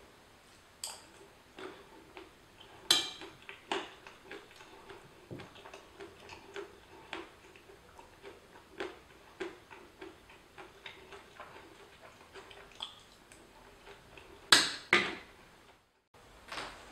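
Metal spoon clinking and scraping against a ceramic plate as food is scooped up, a string of short irregular clicks. The loudest clinks come about three seconds in and as a pair near the end, when the spoon is laid down on the plate.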